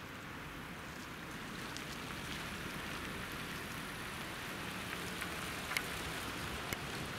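Steady hiss of rain, with a few sharp raindrop ticks in the second half. Near the end, a vehicle's tyres on the wet road add to the hiss.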